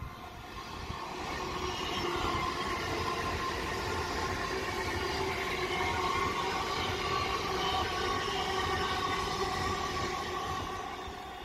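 An LNER Azuma (Hitachi Class 800/801) high-speed train passing at speed, a steady rush of wheels on rail with a faint whine in it. It swells over the first couple of seconds, holds, and eases off near the end as the last coaches go by.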